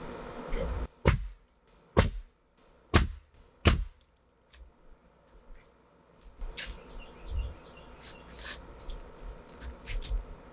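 Four sharp knocks about a second apart, the loudest sounds here, then lighter scattered taps and clicks.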